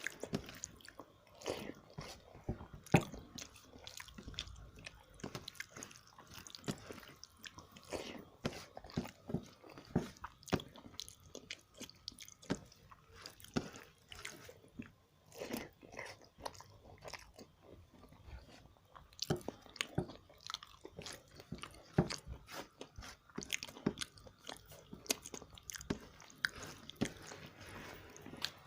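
A person chewing food close to the microphone while eating fish curry, with many small irregular mouth clicks throughout.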